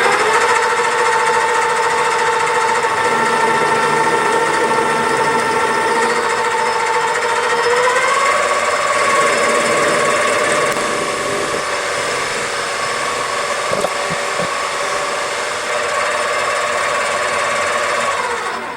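Hobby metal lathe running under power while it takes a cut on a small part to bring it to length. The motor and gears give a steady whine that steps up in pitch about eight seconds in, and the machine is switched off just before the end.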